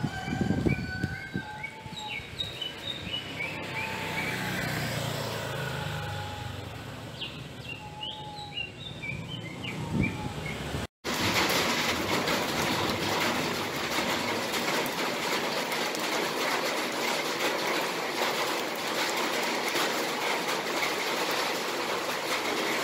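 Small birds chirping repeatedly over a low rumble, with a couple of thumps. About eleven seconds in, the sound cuts off abruptly and gives way to a steady, even rushing noise.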